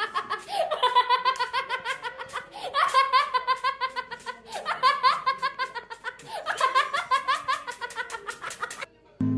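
High-pitched laughter in about four bursts of quick 'ha-ha' pulses, each burst opening with a rising squeal. It cuts off suddenly near the end.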